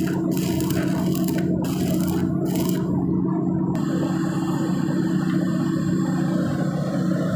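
Electric arc welding on a pipe: a steady hum from the welding setup under the arc's crackling hiss, which briefly drops out in its upper part about three seconds in.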